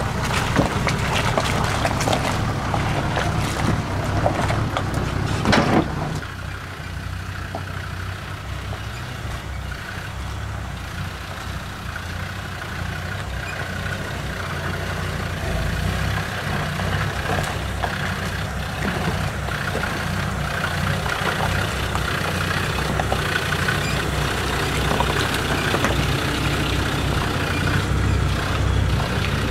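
Land Rover Defender 90's Td5 diesel engine running slowly as it crawls down a steep rocky trail, its steady note growing louder as it nears. The first six seconds are louder, with knocking and crunching like tyres on loose stones, and they cut off suddenly.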